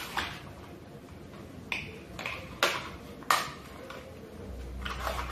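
Scissors snipping through a thin plastic PET bottle: about six short, sharp snips at irregular intervals. A low steady hum starts near the end.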